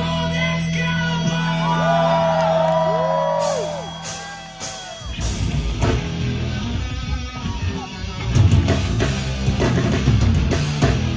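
A live hardcore band plays. A held low distorted chord rings while guitar notes bend up and down over it, then the drums and heavy guitars come crashing in about five seconds in.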